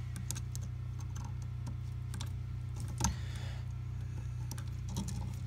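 Scattered small clicks and ticks of needle-nose pliers gripping and bending stiff 12-gauge copper wire into a hook for an outlet's screw terminal. The loudest click comes about three seconds in, and a steady low hum runs underneath.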